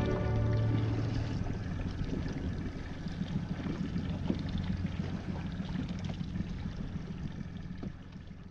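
A boat's engine running low with water sloshing and splashing against the hull, fading out near the end.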